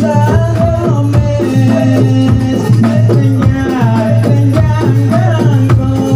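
Live Javanese kubro siswo music: men singing into microphones over drums and a busy, evenly repeating percussion beat with a rattling edge.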